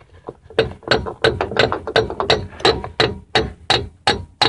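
Hammer blows on metal, about three a second in a steady rhythm starting just after the start, knocking the pinion gear out of a Dana 30 front axle housing.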